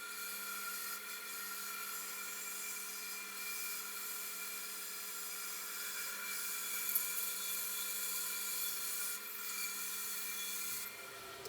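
Small power tool running steadily while abrading the work, a grinding, sanding sound that eases near the end.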